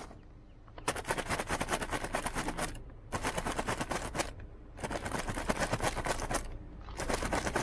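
Animal feed rattled by shaking it in a container to call an ostrich over, in four bursts of rapid rattling one to two seconds long with short pauses between them.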